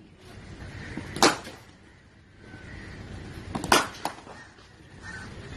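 Cricket bat striking a leather ball twice, sharp cracks about two and a half seconds apart, each just after a softer knock.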